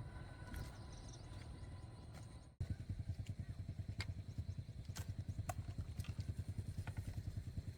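A small engine running with a rapid, even low pulse, starting abruptly a third of the way in; before it, only low steady background noise with faint clicks.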